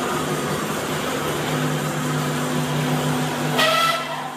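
Motorized steel roller shutter rolling up, a steady mechanical hum with rattle. Near the end there is a brief higher whine, and then the noise drops off as it stops.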